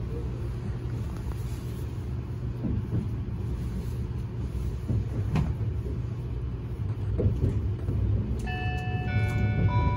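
Steady low rumble of an E257-series express train running, heard from inside the carriage, with a single click about five seconds in. About eight and a half seconds in, an electronic chime melody of held tones starts over the PA, announcing an onboard announcement.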